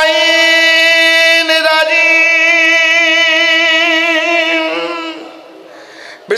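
A man's voice chanting a long, high held note into a microphone, wavering slightly midway, then fading out about five seconds in; a new held note begins right at the end.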